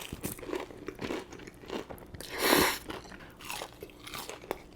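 Close-miked mouth-eating sounds: crisp bites and moist chewing of crunchy fried food, with one louder crunch about halfway through.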